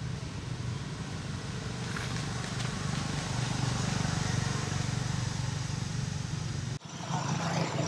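Steady low rumble of a running engine. It drops out abruptly near the end and comes back at once with more hiss.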